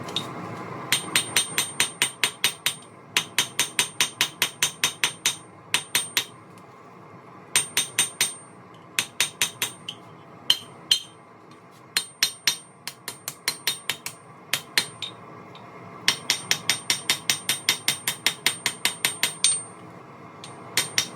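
Hand hammer striking hot spring steel on an anvil, forging a hot-cut hardy tool blank. The blows come in quick runs of about five a second, each with a high ring, broken by short pauses.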